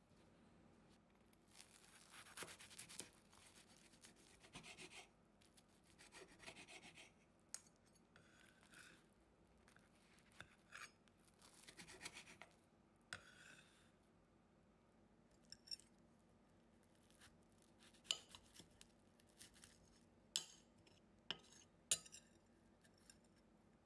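Faint kitchen handling sounds: short scraping and rubbing strokes, then a few sharp clicks and taps in the second half.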